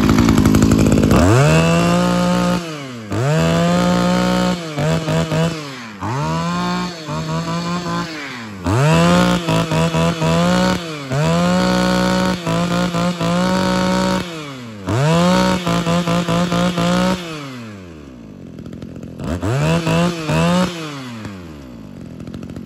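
Zenoah BCZ271 brush cutter's small two-stroke engine being throttled up and down over and over, each time revving quickly to high speed and dropping back. Near the end it settles toward idle with a couple of last blips. A solid, powerful engine note, which the seller takes as the sign of a sound machine.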